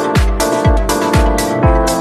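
Electronic dance music with a steady four-on-the-floor kick drum about twice a second, bright ticking hi-hats and sustained synth chords.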